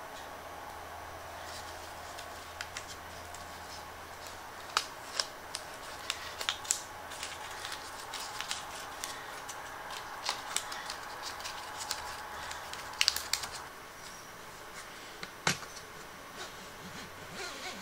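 Blue painter's tape being peeled off and crumpled by hand: an irregular run of small crackles and clicks, with one sharper knock near the end.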